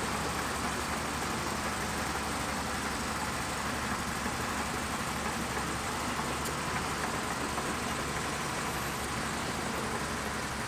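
Bulldozer's diesel engine running steadily at an even level.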